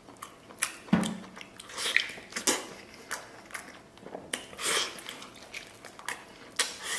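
Close-up eating sounds of a person chewing soft braised pork meat and cartilage pulled off a pork leg bone: wet lip smacks and mouth clicks coming irregularly throughout.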